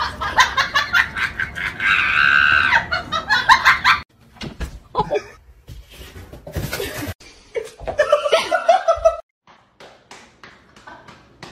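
People laughing: rapid repeated bursts for about the first four seconds, then, after a sudden cut, softer and more broken-up laughter.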